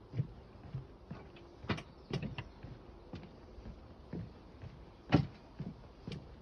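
Footsteps of a person walking at a steady pace, about two steps a second, with a few sharper, louder steps. The loudest comes about five seconds in.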